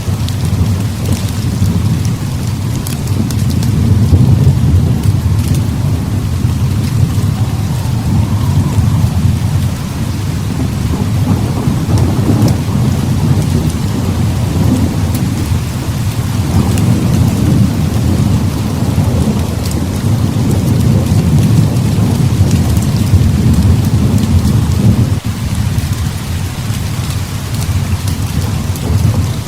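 Heavy rain pouring steadily, under a continuous low rumble of thunder that swells and fades, easing briefly near the end.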